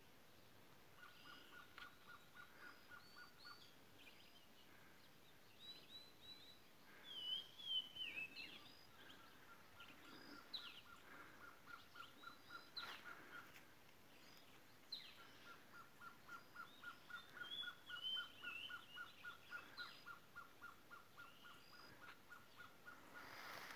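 Wild birds calling. One keeps up long runs of short, evenly repeated notes, a few each second and lasting several seconds at a time, while others add scattered higher chirps and whistles.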